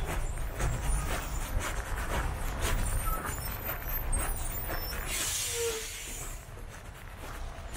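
Footsteps of a person walking along a city street over a steady low rumble of street traffic. About five seconds in, a high hiss rises and lasts about a second and a half, then the background drops a little quieter.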